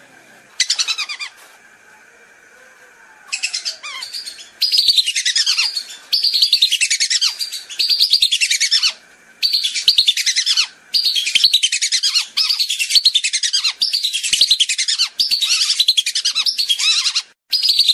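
Whistling ducks (belibis) calling as a lure recording: many shrill whistles falling in pitch, in bouts of one to two seconds with short gaps. After one short bout near the start, the bouts run on almost continuously from about three seconds in.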